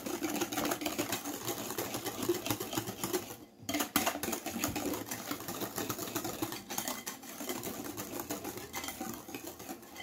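Wire whisk beating a thin cake batter in a glass bowl by hand: fast, continuous wet swishing with the wires clicking against the glass, breaking off briefly about three and a half seconds in.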